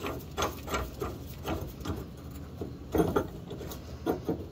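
Irregular metal clicks and clinks of hand tools, several in close pairs, as a Pitman arm puller is fitted and worked onto a truck's steering Pitman arm.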